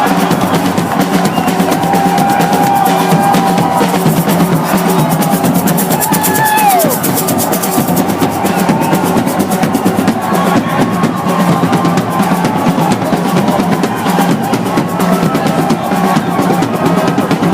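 Loud drum-driven music with rapid drumming and snare-drum rolls.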